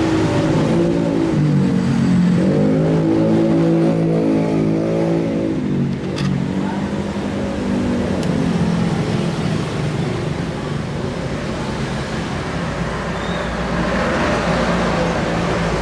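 An engine running, revved up and back down near the start and again about two and a half seconds in, then settling to a steady low drone.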